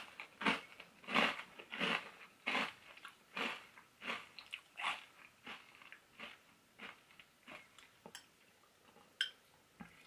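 Person chewing a mouthful of milk-soaked Nature's Path Peanut Butter Panda Puffs, crunchy corn-puff cereal still holding its crunch in milk: a steady rhythm of crunching chews, about three every two seconds, fading after about five seconds. A single sharp click near the end.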